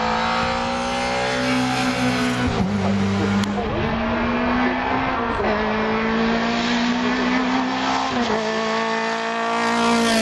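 Race car engine at full throttle on a hillclimb. Its pitch climbs slowly, then drops sharply at each upshift, about every two and a half seconds. Near the end another car passes close by, louder.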